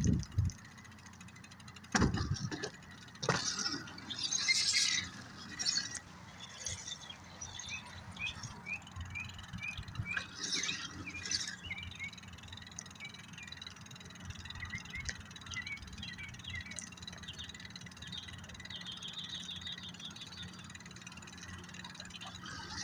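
Animal calls: runs of short, evenly spaced chirps, with two sharp knocks about two and three seconds in.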